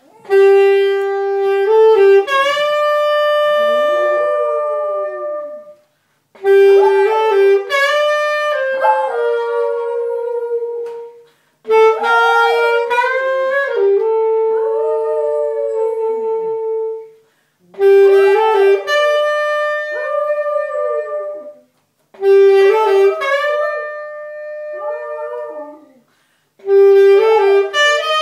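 Saxophone playing six short phrases of long held notes, with short pauses between them. A small dog howls along with each phrase, its howls rising and falling in pitch around the saxophone's notes.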